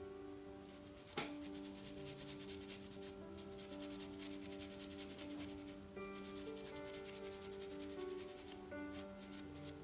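Toothbrush bristles scrubbing a Hall effect sensor board in quick back-and-forth strokes to brush debris off it, with a couple of brief pauses and one small tap about a second in. Soft background music runs underneath.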